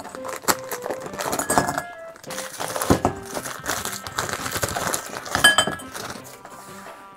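Frozen broccoli florets and frozen lotus-root slices tipped from their bags into a glass bowl, clinking and clattering against the glass in many quick knocks.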